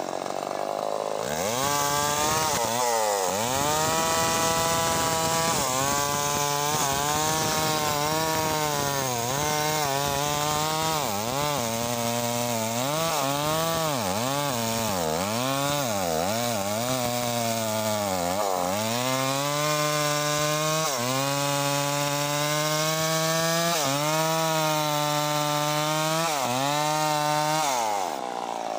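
Stihl two-stroke chainsaw at full throttle, cutting through a teak log. The engine pitch sags and recovers again and again as it bogs under load, the bar binding in the cut, then holds steadier later on. The engine comes up to speed about a second in and cuts off near the end.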